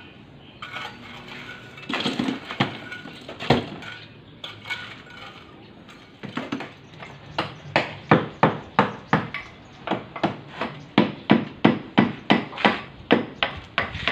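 Metal blade chipping at the concrete and tile edge of a tomb niche. A few scattered clinks come first, then from about halfway on a steady run of sharp strikes, about three a second.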